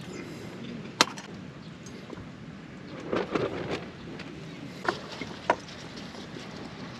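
A few sharp clicks and knocks over a steady low background: one loud click about a second in, a short clatter around three seconds, and two more clicks a little after that.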